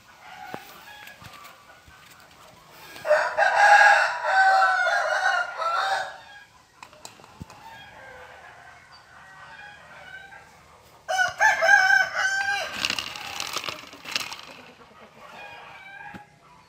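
Rooster crowing twice, each crow lasting about three seconds: the first about three seconds in, the second about eight seconds later.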